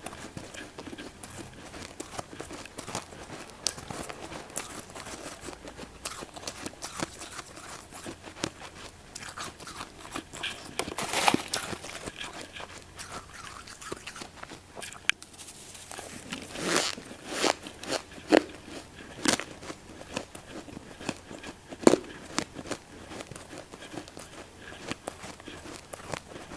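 Close-miked biting and chewing of powdery freezer frost: a steady run of small crackling crunches, with louder bites now and then, the loudest about eleven seconds in.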